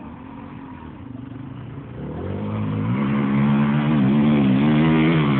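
Dirt bike engine revving hard under load. It grows louder from about two seconds in, and its pitch rises and falls near the end.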